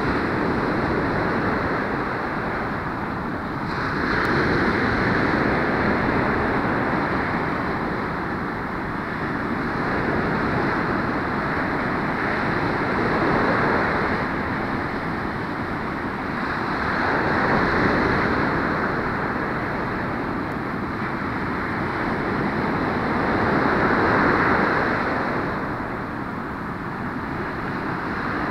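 Ocean surf breaking and washing up a sandy beach: a steady rush that swells every six or seven seconds as each wave breaks and runs up the sand.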